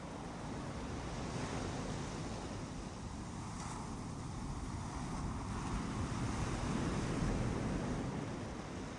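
Ocean surf washing onto a beach, a wave swelling to its loudest around seven seconds in and easing off near the end.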